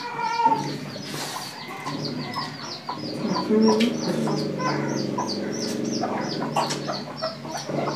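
Chickens: a steady run of short, high, falling peeps, several a second, typical of chicks, with lower clucking around the middle.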